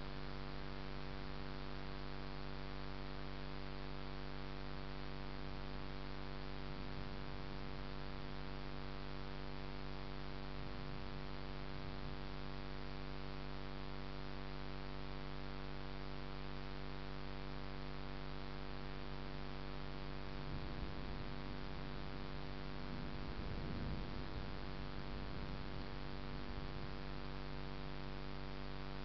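Steady electrical hum made of a stack of even tones over a light hiss. Faint low rumbles come and go underneath, most noticeably about 20 seconds in and again a few seconds later.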